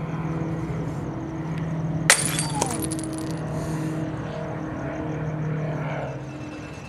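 Glass shattering about two seconds in, a single sharp crash followed by a bright ringing tail of breaking pieces lasting about a second, with a smaller clink just after. A low steady hum runs underneath.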